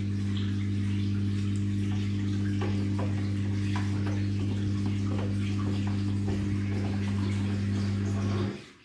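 Front-loading washing machine draining with its drum turning: the drain pump hums steadily under sloshing and splashing water. The hum cuts off about eight and a half seconds in.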